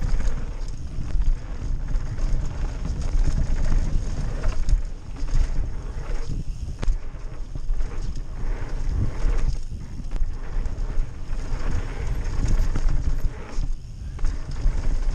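Mountain bike on a fast downhill run: tyres rumbling over loose forest dirt and the bike rattling and clattering over roots and bumps, with heavy wind buffeting on the microphone.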